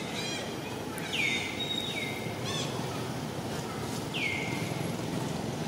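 A bird calling repeatedly: clear whistled notes that slide down and level off, three times, with short rippling notes between, over steady low background noise.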